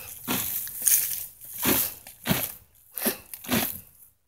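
Greater Swiss Mountain Dog digging in garden soil: its front paws scrape and rake the dirt in a run of repeated strokes, about two a second, thinning out near the end.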